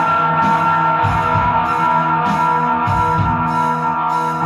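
Rock instrumental led by an electric guitar, with held notes over a steady beat of about two strokes a second.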